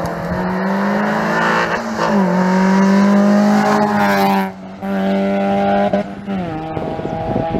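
Peugeot rally car's engine running hard at high revs as it accelerates up the road past. The pitch climbs and then drops back sharply three times: about two seconds in, around the middle, and near the end.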